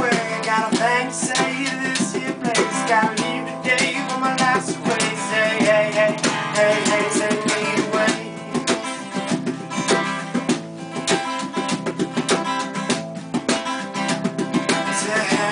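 Acoustic guitar strummed with a man singing, while hands slap a box as a drum.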